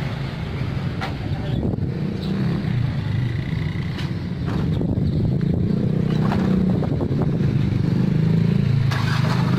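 Mitsubishi truck's engine running as the truck pulls slowly forward, getting louder about six seconds in, with a few short knocks.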